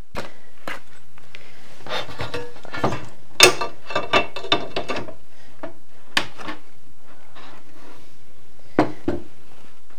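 Laser engraver's roller (gantry) assembly being slid onto the metal frame rails and the frame handled on a wooden bench: scattered knocks, clicks and rubbing. The loudest clatter comes about three and a half seconds in, with single knocks near six and nine seconds.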